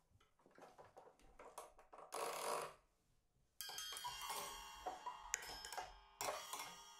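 Experimental music from a live set. Sparse clicks and a short hissing burst come first. About three and a half seconds in, a dense layer of sustained, ringing, bell-like tones cuts in abruptly, with ticks through it.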